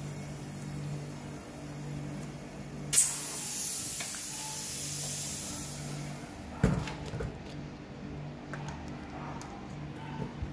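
A sudden loud hiss about three seconds in, fading away over about three seconds, followed by a sharp thump and a few light knocks.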